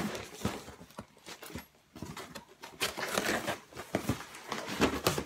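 Cardboard shipping boxes being opened by hand: scissors working at packing tape, and cardboard flaps rustling, scraping and tapping in irregular bursts, with a quieter stretch about a second in.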